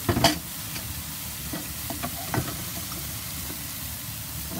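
Food frying in a pan with a steady sizzle as it is stirred. A sharp knock of the utensil against the pan comes just after the start, and lighter taps come a little over two seconds in.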